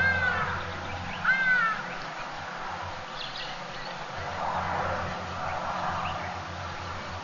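Two short, high, arching animal calls, one right at the start and another about a second and a half in, over a steady low hum.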